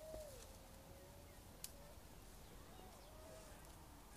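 Near silence: faint room tone with a faint, drawn-out whistle-like tone that bends and wavers, and one small click about one and a half seconds in.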